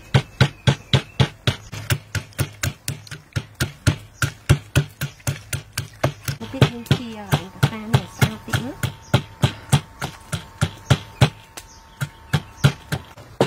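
Wooden pestle pounding in a large wooden mortar, a steady rhythm of dull thuds at about three to four strokes a second.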